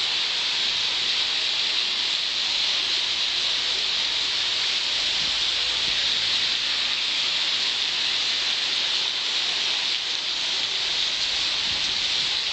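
Heavy rain pouring onto a paved street and pavement: a steady, dense hiss that holds at the same level throughout.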